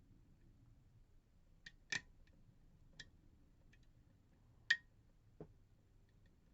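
Faint metallic clicks of lock picks working inside an ASSA D12 lock, about six scattered ticks with two louder ones, as the internal wafers are manipulated toward the set position.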